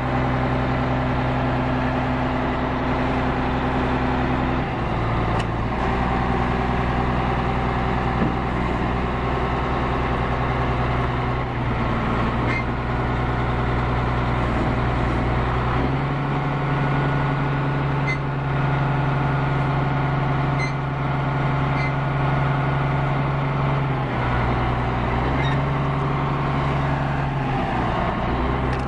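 The diesel engine of a CAT 160H motor grader running steadily, its note shifting in steps a few times as the engine speed changes.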